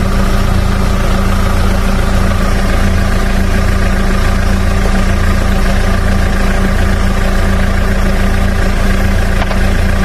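Car engine idling steadily with the air conditioning switched on, a constant low hum that does not change.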